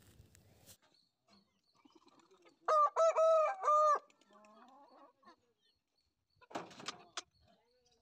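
Aseel rooster crowing: one loud crow of about four linked notes, a little over a second long, about three seconds in. A short rough burst follows near the end.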